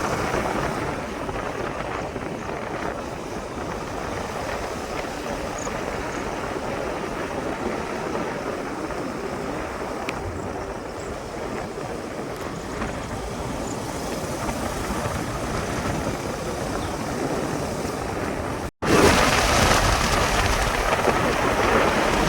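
Waterfall's falling water rushing in a steady, even roar. About 19 s in the sound cuts off for an instant and comes back louder.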